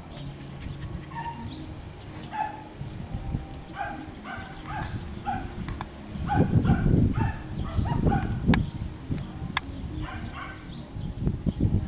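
Schnoodle puppies giving short, high yips and play barks, in quick runs of several a second at times, while they wrestle. A louder low rumbling noise comes in about six seconds in and again near the end.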